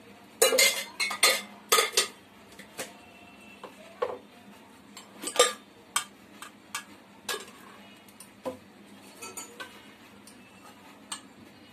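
Metal kitchen utensils clinking and knocking: a spoon and a small pan handled on the stove while the oil for a tempering heats. Sharp, irregular clinks, several close together in the first two seconds and a loud one about five seconds in, then fewer and lighter.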